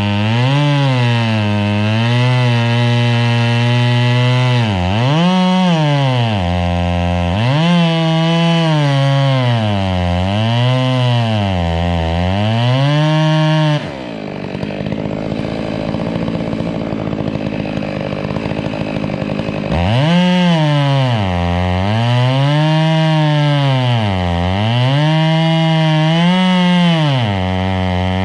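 Two-stroke chainsaw cutting wood, its engine note dipping and climbing back every second or two as the chain loads up in the cut. About halfway through it drops to a lower, steadier note for several seconds, then the loaded cutting resumes.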